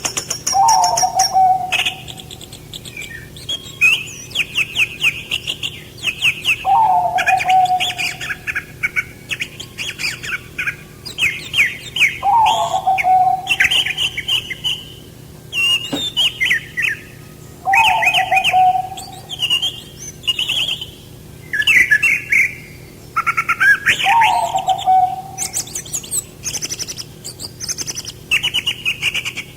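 Several songbirds singing at once: rapid chirps and trills with high twittering over them. One bird repeats a lower, falling call about every five to six seconds.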